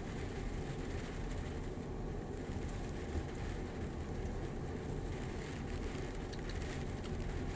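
Steady low rumble of an idling lorry engine, even throughout with no rise or fall.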